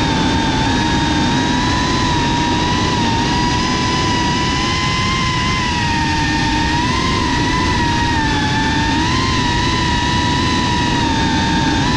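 GEPRC FPV quadcopter's electric motors and propellers whining, heard from the GoPro on board. The pitch wavers gently up and down as the throttle changes, over a low rushing noise.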